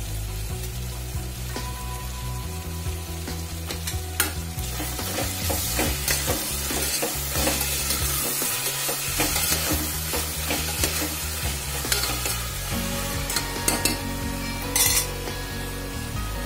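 Onions, tomatoes, green chillies and garlic sizzling as they fry in plenty of oil in a pressure cooker pan, with a spoon scraping and clicking against the pan as the mix is stirred. The stirring is busiest in the middle stretch.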